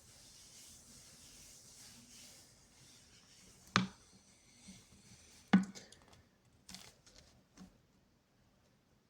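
Two short, sharp clicks about two seconds apart, followed by two fainter ones.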